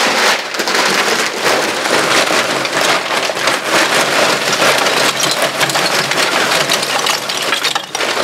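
Lump charcoal poured from a bag into a kamado grill's firebox: a dense, continuous clatter of many pieces landing on the old coals, with a brief let-up near the end.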